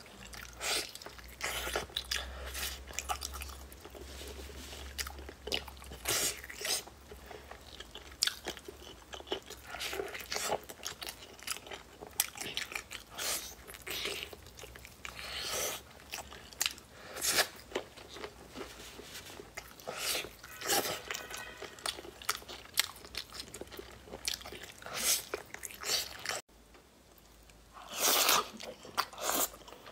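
A person eating braised pork close to the microphone: irregular bites and chews, with a brief quieter break near the end before the biting resumes.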